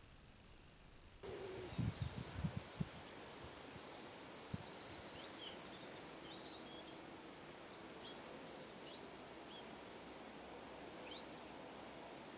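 Outdoor canal-side ambience with small birds chirping and trilling, taking over abruptly from the quiet hum of the underwater camera about a second in. A few low thumps, the loudest sounds, come around two seconds in.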